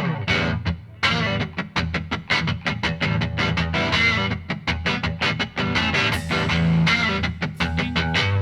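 Background rock music with electric guitar and a quick, steady beat.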